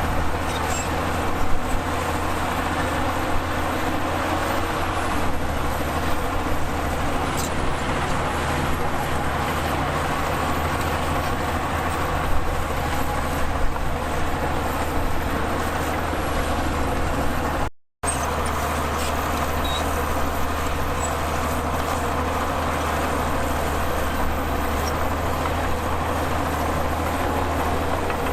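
Heavy diesel engines of bulldozers and dump trucks running steadily while the machines work soil. The sound drops out for a moment about two-thirds of the way through, at a cut.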